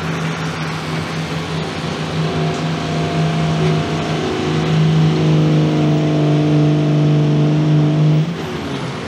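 Dodge Ram 2500 Cummins diesel straight-six running hard under load as the truck drags a 40,000-pound weight-transfer sled. The engine note holds steady, grows louder and fuller about four and a half seconds in, and drops away abruptly near the end.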